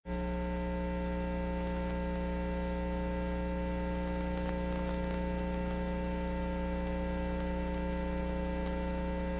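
Steady electrical mains hum: a low buzz with a stack of higher overtones and a light static hiss, carried on the recording's audio track.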